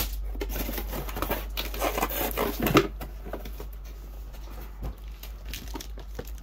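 Packaging being handled: rustling with irregular light taps and knocks, busy for the first three seconds, then only a few scattered taps.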